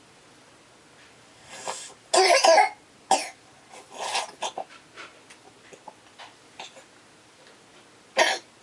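A young child coughing: a hard cluster of coughs about two seconds in, a single cough a second later, softer coughs and breaths after that, and one more sharp cough near the end.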